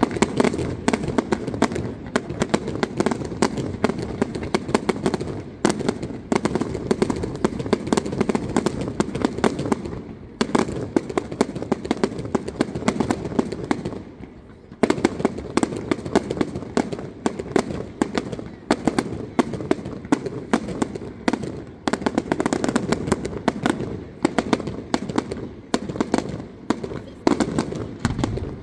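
Aerial fireworks display firing in a dense, continuous barrage of rapid bangs and crackling, with two short lulls about ten and fourteen seconds in.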